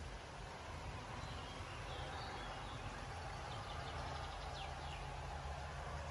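Steady ambient background noise with a low hum, and a few faint, short high chirps from birds about two and four seconds in.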